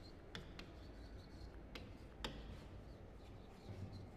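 Handwriting on a green writing board: a faint rubbing of the writing strokes with a few brief taps.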